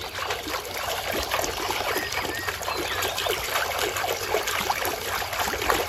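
Water splashing and sloshing in a plastic tub as a hand scrubs vigorously under the surface: a dense run of quick, irregular splashes.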